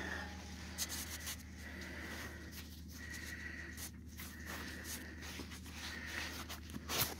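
Faint rubbing and scattered clicks over a steady low hum, with a sharper click near the end.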